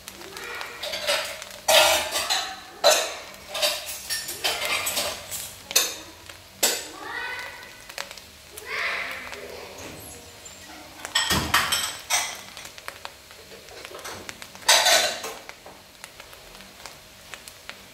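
Kitchen utensils clattering against pots and bowls: a string of irregular sharp knocks and clinks, some briefly ringing, which thins out near the end.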